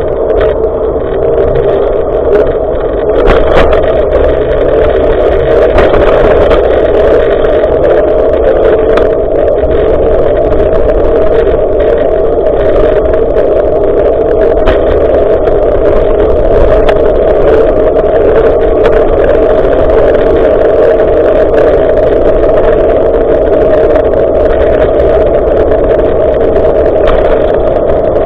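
Wind rushing over an action camera's microphone during a bicycle ride: a loud, steady, muffled rumble, with small knocks and rattles from the bike scattered through it.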